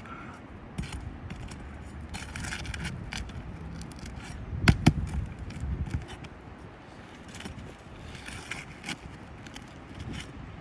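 Asphalt roof shingles being worked loose: scraping and small clicks as tabs are lifted and nails pried out, with a couple of sharp knocks a little under five seconds in.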